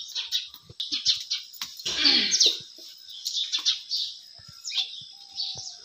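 Small birds chirping and twittering repeatedly, with one louder call falling in pitch about two seconds in and a few faint knocks.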